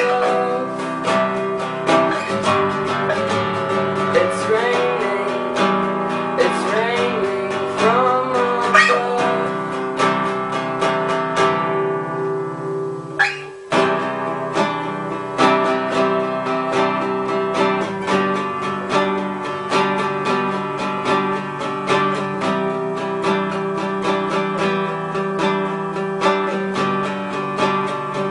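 Acoustic guitar music, picked and strummed in a steady rhythm, with a melody line that bends in pitch over the first several seconds. The playing thins out briefly about halfway through and comes back with a sharp strum.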